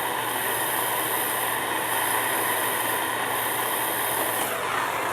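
Gas soldering torch flame hissing steadily while heating a copper pipe joint, its tone sweeping briefly near the end as the flame moves.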